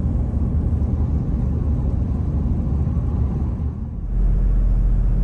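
Pickup truck driving at road speed, heard from inside the cab: a steady low rumble of engine and tyres. About four seconds in it becomes louder and deeper.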